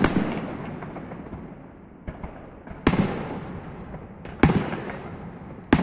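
Fireworks display: four loud bangs of aerial shells bursting and a fainter one, about one every one and a half seconds, each followed by a rumble that fades away.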